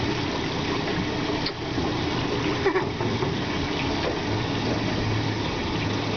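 Water washing and sloshing against a boat hull, with the steady low hum of a Yamaha 250 outboard motor idling underneath.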